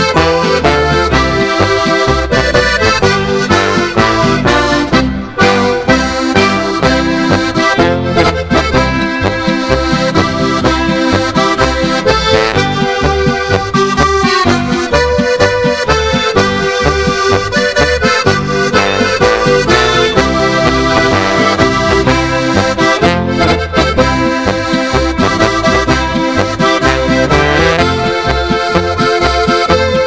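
Instrumental passage of a folk-style march, with the accordion leading over a steady beat.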